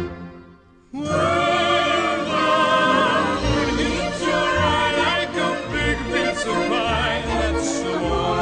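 Background music: after a short lull, a loud passage starts about a second in, a singer holding wavering, vibrato notes over instrumental backing.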